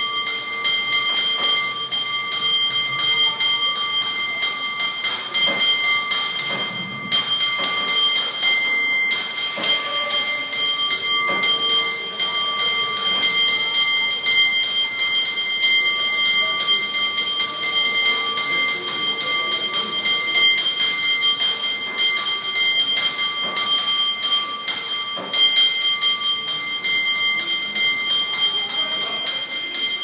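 San Francisco cable car bell rung by hand in a rapid, continuous rhythm of strikes, its ringing tones held throughout.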